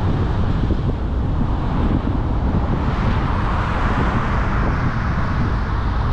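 A car driving along at a steady pace: an even rumble of tyre, road and engine noise, with no sudden events.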